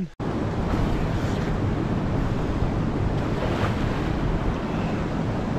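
Steady rush of mountain river water, a loud, even noise.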